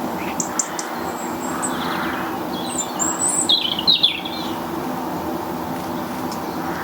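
Small garden birds chirping and calling: a few short, very high chips in the first second, then a busier burst of quick chattering calls about three to four seconds in, over a steady low background hum.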